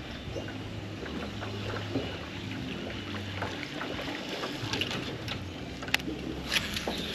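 A small boat's steady background noise with an intermittent low hum, and a few sharp clicks, the clearest about six seconds in and again near the end.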